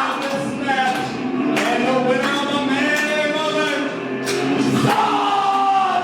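Music with a male singing voice over it, at a steady full level.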